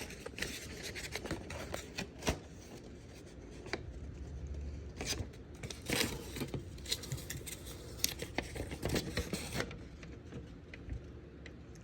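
Handling sounds: paper rustling with light scrapes and scattered clicks, as a printed manual is handled and looked through.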